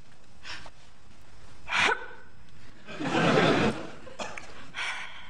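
An elderly woman's sniffs and breathy sighs during a grieving pause: a few short breathy sounds, with a longer, louder exhale about three seconds in.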